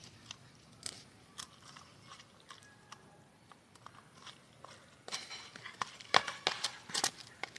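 Fingers mixing rice and curry on a stainless steel plate, with small clicks and scrapes as the fingertips and nails hit the metal. About five seconds in, a busier run of sharper clicks follows.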